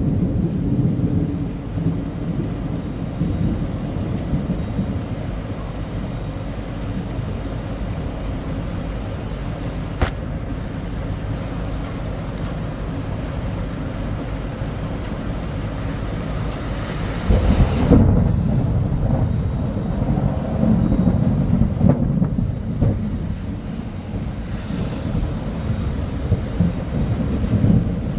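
Steady rain falling, under a low rumble that swells louder about two-thirds of the way through and stays up.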